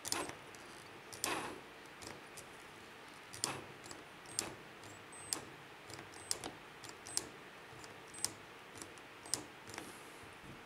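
Sharp plastic clicks about once a second from a cordless drill's trigger being squeezed again and again. No motor whine follows: the drill does not run and the screw is not driven.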